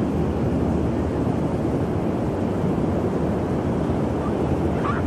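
Steady low rumble of wind buffeting the microphone, mixed with the wash of ocean surf.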